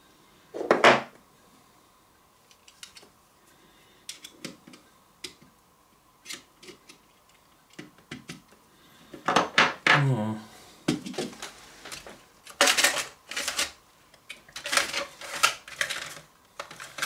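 Tip of a kitchen knife scraping and clicking against the metal contact strips and plastic walls of a small battery compartment, prodding at contacts that don't reach the batteries. Irregular small clicks and scrapes, busier in a few short bursts from about nine seconds in, with a brief sound falling in pitch around ten seconds.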